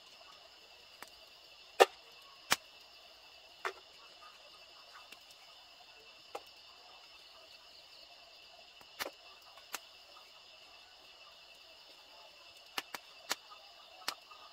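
A steady chorus of night crickets, broken by scattered sharp clicks and snaps, the loudest about two seconds in and a quick cluster near the end.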